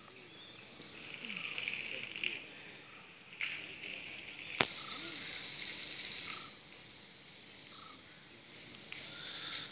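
Water from a garden hose hissing in spells as it is sprayed onto an elephant, with one sharp click about halfway through.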